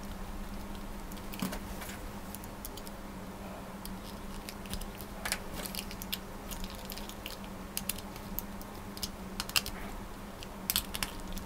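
Scattered small clicks and scrapes of a screwdriver on the small screws of a plastic toy train engine's chassis while the parts are handled.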